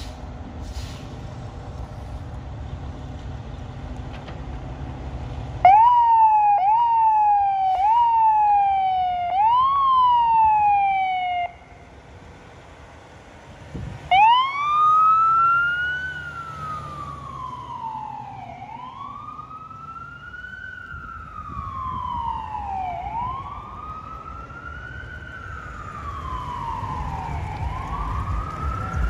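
Fire engine's electronic siren. It first rises sharply and falls off about once every second and a half, stops briefly, then comes back as a slower wail rising and falling every couple of seconds. A low engine rumble is heard before the siren starts and again near the end.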